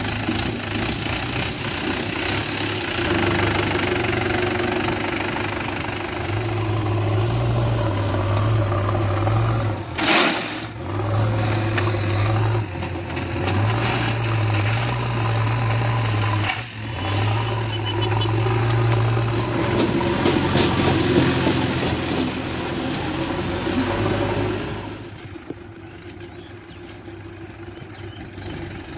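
Diesel engines of a Mahindra tractor and a JCB 3DX backhoe loader running close by, a steady low hum that comes and goes, with one sharp knock about ten seconds in. Near the end the engine sound turns quieter.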